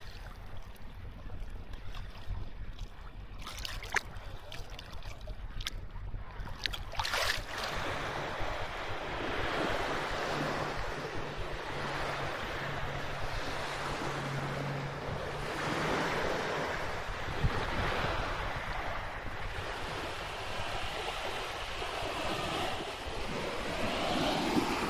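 Sea waves washing onto a shore, the surf swelling and falling back every few seconds, with wind rumbling on the microphone. The first several seconds are quieter, with a few sharp clicks, before the surf grows louder.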